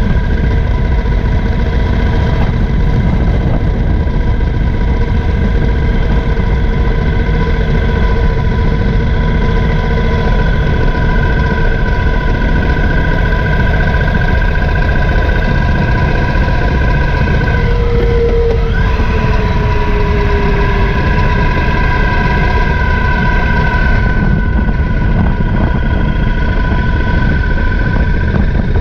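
Triumph Thunderbird LT's parallel-twin engine running steadily as the motorcycle rides along, under a heavy, steady rumble of wind and road noise on a camera mounted low by the front wheel.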